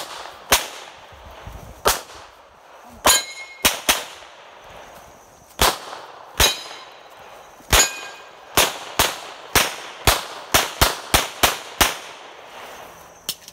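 Handgun shots, about nineteen sharp cracks, spaced out at first and then a fast string of roughly three a second from about eight and a half seconds in. One shot about three seconds in is followed by a short metallic ring.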